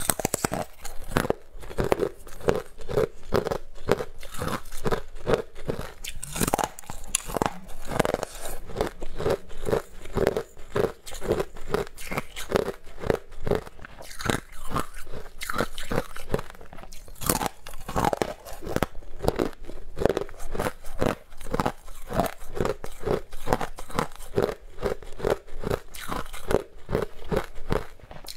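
Crunching and chewing of hard frozen purple ice bars, close to the microphone: a steady run of sharp crunches, about three a second.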